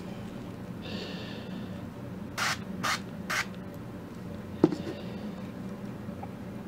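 Three short hisses of an aerosol canola-oil cooking spray, laying a light coating of oil on a plastic stencil, followed about a second later by a single sharp knock.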